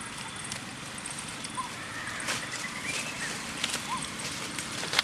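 Dry leaves rustling and crackling as macaques scuffle and play on the leaf-littered ground, with a couple of faint short chirps.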